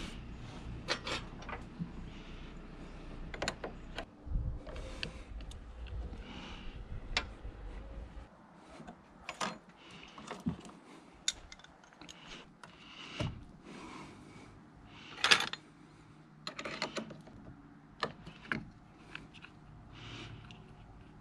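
Scattered clicks, clinks and knocks of hand tools and metal parts being handled during engine-bay work, with one sharper knock about fifteen seconds in. A low hum underneath stops about eight seconds in.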